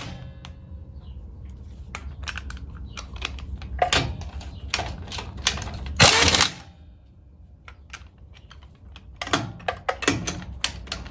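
Pneumatic impact wrench with a torque-limiting socket running wheel nuts down in several short bursts, hammering as each nut bottoms out. The socket limits the torque to about 100 foot-pounds.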